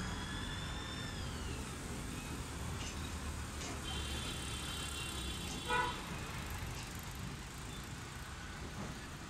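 Sri Lanka Railways passenger train's coaches rolling slowly into the station with a steady low rumble and a thin high brake squeal about four to five seconds in. A short horn beep cuts through just before six seconds.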